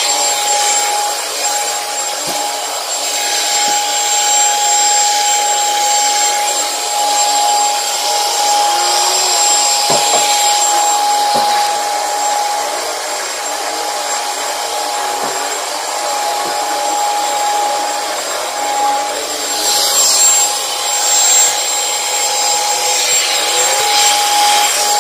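Commercial vacuum cleaner running on carpet: a steady motor whine over a loud rushing of air that swells and fades every couple of seconds.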